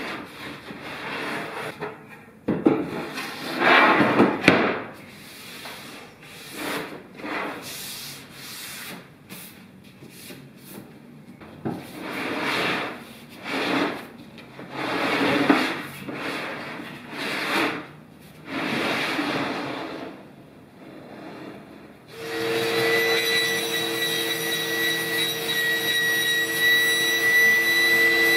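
A plywood crosscut-sled base is slid back and forth over a table saw's top, its runners rubbing in the miter slots, in a series of separate strokes about a second apart. About 22 seconds in, the Ryobi table saw's motor starts and runs with a steady whine.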